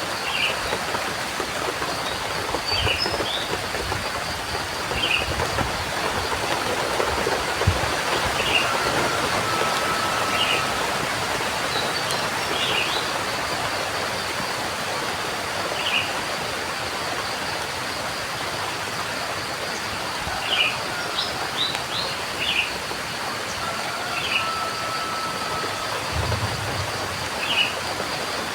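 Steady rain with birds chirping, short calls every second or two, over a steady high-pitched drone. Twice a long level whistled note sounds.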